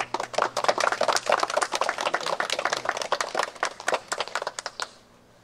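A small group of people applauding with quick, scattered hand claps that thin out and stop a little before five seconds in.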